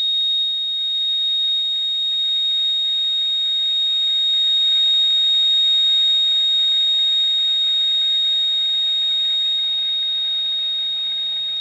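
Radio receiver's speaker on lower sideband playing an unidentified signal: one steady, high-pitched flat tone over faint static hiss. It is almost a ringing rather than a buzz, and comes in at about 10 dB on the antenna.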